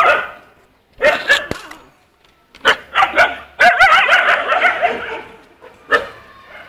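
Stray dogs barking in short bursts, then one longer wavering cry about halfway through.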